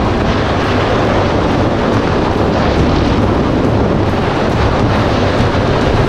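Yamaha GP1800R SVHO jet ski's supercharged engine running steadily under way, a constant low hum under a loud rushing noise of wind and water.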